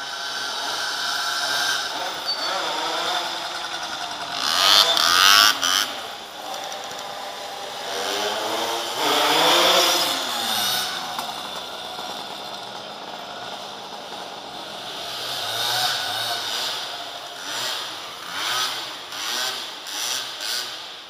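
Motorcycle engines revving and riding past, their pitch rising and falling, loudest as bikes go by about 5 and 10 seconds in. Near the end comes a run of short throttle blips, roughly one a second.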